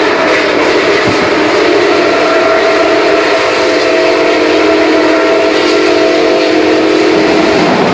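Nickel Plate Road 765's steam whistle sounding one long, chord-like blast that cuts off near the end, over the rumble of the moving train heard from the vestibule.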